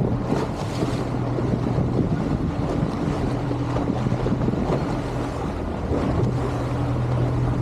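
Boston Whaler's engine running at a steady hum under way, with wind buffeting the microphone and water rushing past the hull.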